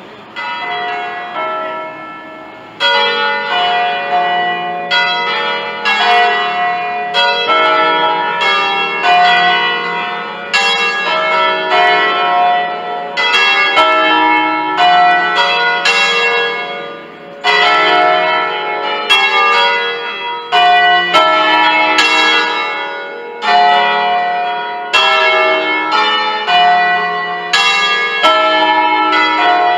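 Ring of five church bells cast by Pruneri in 1887, tuned to a flat E, swinging on their wheels and striking in close succession, about two strokes a second, each stroke ringing on under the next. The ringing comes in faintly, then grows loud about three seconds in.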